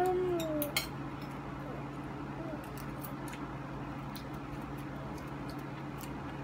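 Forks and spoons clinking against plates as two children eat, in scattered light clicks over a steady low hum. A short falling cry is loudest, right at the start.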